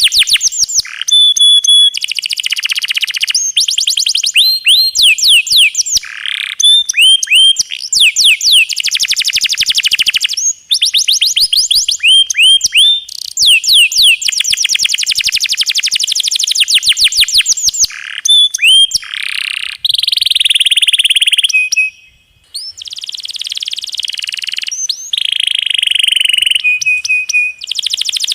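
Domestic canary singing long, fast rolls: trains of rapid repeated high notes, many swooping downward, broken by held whistled notes and short pauses between phrases.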